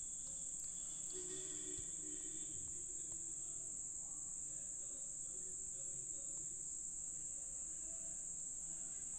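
A steady, unbroken high-pitched insect trill, with faint far-off voices murmuring about one to three seconds in.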